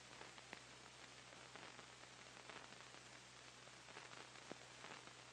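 Near silence: faint steady hiss and a low hum, with a few faint clicks.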